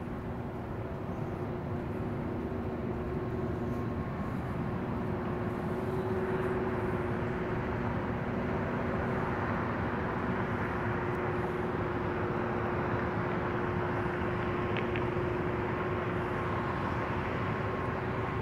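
Steady outdoor drone heard from a rooftop: a constant low machine hum over a wide rushing noise of city traffic and air, swelling slightly in the first few seconds and then holding level.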